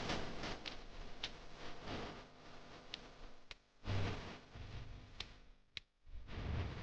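Kitchen utensils and bowls being handled: scattered light clicks and taps, with a dull thump about four seconds in.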